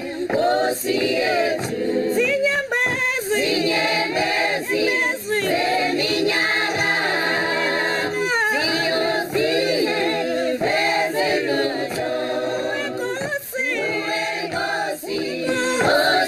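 A choir singing, several voices in harmony without a break.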